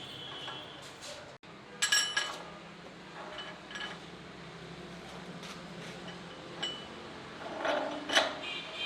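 Metal tools clinking and knocking during tractor tire repair work, with two louder ringing metal strikes, one about two seconds in and one near the end.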